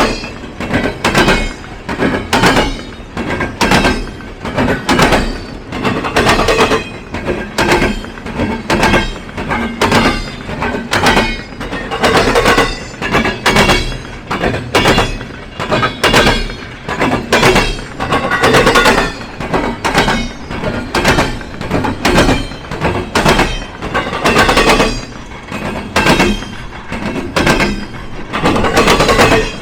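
Train wheels pounding across a railroad diamond crossing: a steady, rapid string of loud metallic bangs, bunched in groups as each truck's wheels hit the crossing gaps.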